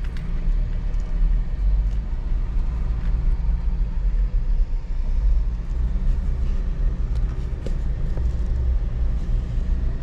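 Car driving slowly, a steady low engine and road rumble.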